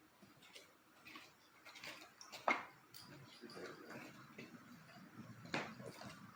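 Scattered sharp clicks and light knocks of small hard objects being handled, with a loud click about two and a half seconds in and another near the end.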